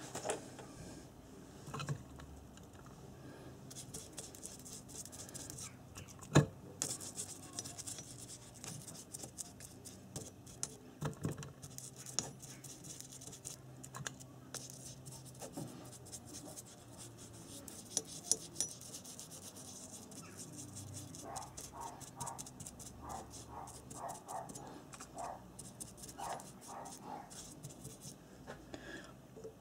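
Faint scratching, rustling and clicking from handling work on a bench, with one sharp click about six seconds in and a run of short squeaks about two-thirds of the way through.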